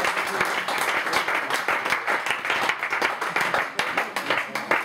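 Audience applauding a finished bertso verse: dense clapping that thins out and dies away near the end.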